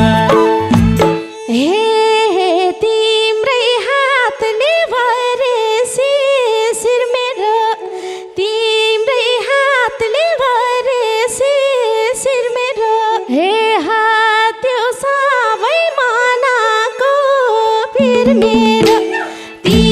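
Nepali folk instrumental interlude: a lead melody with slides and vibrato over a steady harmonium drone. The madal and dholak drums play in the first second, drop out, and come back near the end.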